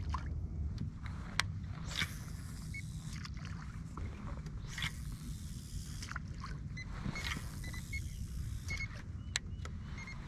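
Kayak moving slowly on calm water: a steady low rumble with a soft swish of water every two to three seconds, and a couple of sharp clicks.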